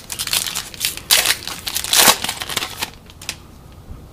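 Foil wrapper of a trading card pack crinkling and rustling as it is opened, a dense crackly run of about three seconds with the loudest crinkles near the middle, then quiet.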